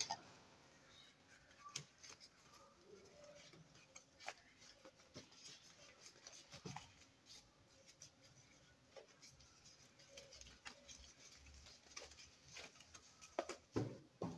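Near silence broken by faint, scattered clicks and taps of small metal bicycle parts being handled in a plastic tub, a few louder near the end.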